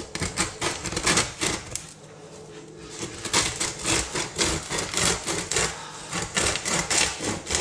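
Serrated bread knife sawing through the crisp crust of a round rye loaf, giving rapid crackling, rasping crunches. The crunching eases briefly about two seconds in, then comes back in a dense run of sawing strokes.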